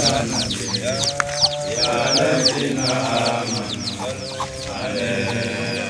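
Outdoor animal calls: rapid high chirps repeating several times a second, with a few drawn-out lower calls about a second long, the clearest about one second in.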